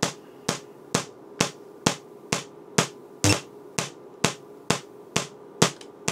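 Rebuilt hand-held Tesla coil, driven by a staccato interrupter, firing short spark discharges: a sharp snap about twice a second, evenly spaced, over a faint steady hum.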